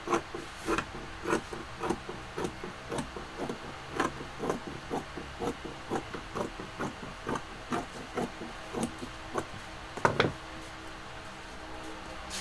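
Sewing scissors cutting through curtain fabric, snipping about twice a second. A louder knock comes about ten seconds in, and then the snipping stops.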